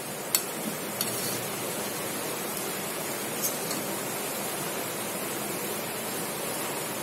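Steady sizzling hiss of egg, bread and vegetables frying in ghee in a wok-style pan, with three sharp clinks of a metal spatula against the pan, the loudest about a third of a second in.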